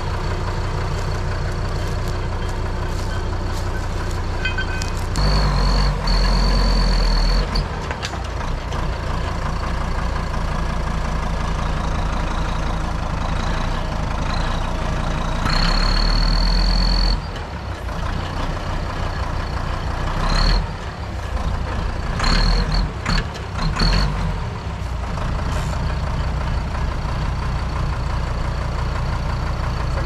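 Deutz DX tractor's air-cooled diesel engine running, straining twice for a couple of seconds and then in several shorter bursts near the end. Each time the engine note swells and a steady high whine sounds as the front loader's hydraulics heave against a wooden post stuck in the ground.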